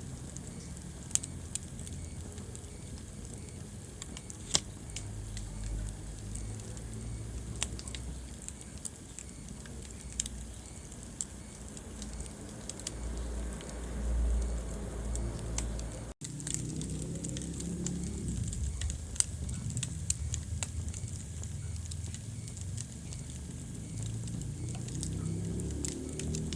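Wood fire burning in a fireplace: a steady low rumble of flames with irregular crackles and now and then a sharp pop. The sound cuts out for an instant about sixteen seconds in.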